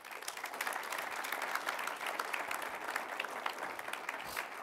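An audience applauding: dense, steady clapping that starts suddenly.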